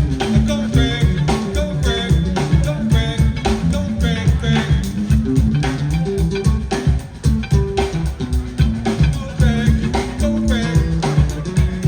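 Live jazz-funk jam of electric bass, drum kit and guitar, with a busy walking bass line under steady drumming and guitar phrases.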